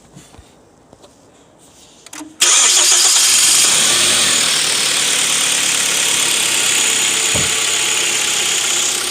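Hyundai YF Sonata's Theta II four-cylinder gasoline engine starting: a few faint clicks, then about two and a half seconds in it catches almost at once and settles into a steady idle that eases down slightly, its freshly refitted drive belt turning the accessory pulleys.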